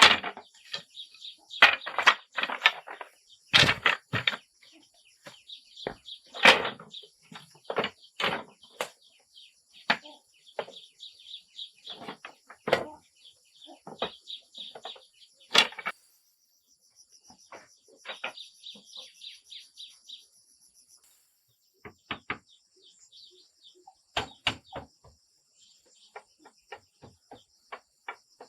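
Irregular knocks and clicks of handwork, over birds chirping and a steady high buzz. The knocks come thick for the first half and thin out after about sixteen seconds.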